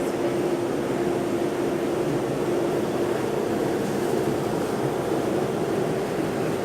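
Hospital washer-disinfector running a shoe-washing program: a steady mechanical hum with one held tone and a constant rushing noise.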